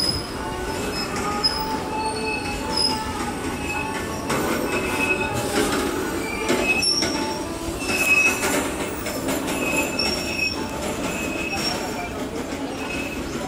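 Loaded open coal wagons (BOXN) of a freight train rolling past close by: a continuous rumble and clatter of wheels on rail, with short high squeals from the wheels every second or so.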